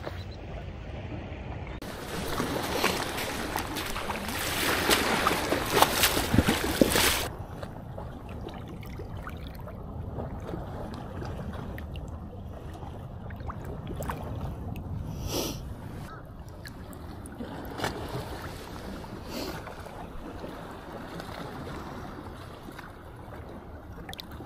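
Ocean surf on a beach: a wave breaks and washes in loudly from about two to seven seconds in, followed by a quieter steady wash with a few short knocks.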